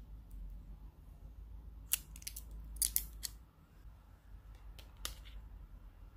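Sharp small plastic clicks and snaps as a flip phone's battery is handled and fitted into its battery compartment, a burst of clicks about two to three seconds in and a couple more around five seconds.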